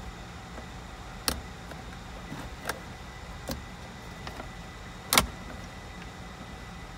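Small pick prodding at the release latch of the wiring connector on a GM console lid's wireless charging module: a few sharp plastic clicks and taps, the loudest about five seconds in, over a steady low hum.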